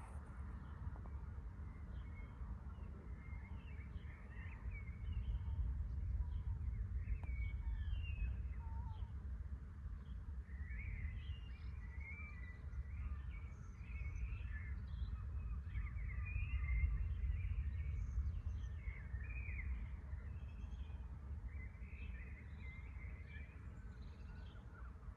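Several small birds chirping and singing, growing busier a few seconds in, over a steady low rumble that swells and fades twice.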